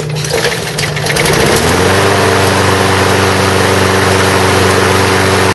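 Gas lawnmower engine running on its newly replaced fuel line. Its pitch rises about a second and a half in, then holds at a steady speed.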